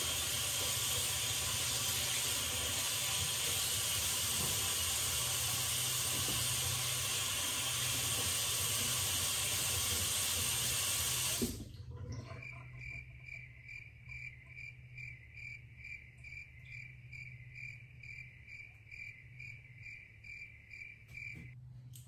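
Water running steadily from a bathroom sink faucet, shut off suddenly about eleven seconds in. After that a faint high pulsing, about two beats a second, stops just before the end.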